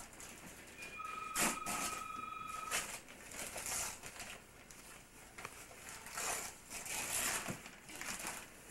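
Wrapping paper rustling and tearing as a small child unwraps a present and handles the box. About a second in, a telephone rings once for about two seconds with a steady electronic two-tone ring.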